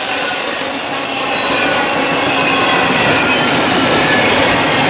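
Mixed freight train cars (well cars, tank cars, covered hoppers) rolling past close by: the steady, loud rush and rattle of steel wheels on rail, with faint high-pitched wheel squeal running through it.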